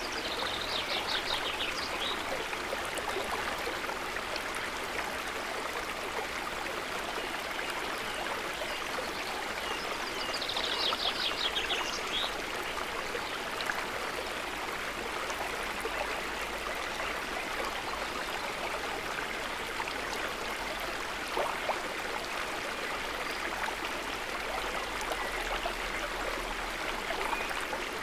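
River water running steadily, an even rushing babble. A short high trill sounds twice over it, near the start and again about ten seconds in.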